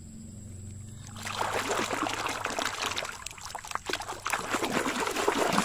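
Water splashing as a hand swishes and rubs a mud-covered toy motorcycle under the water to wash it. It starts about a second in and goes on as quick, uneven splashes.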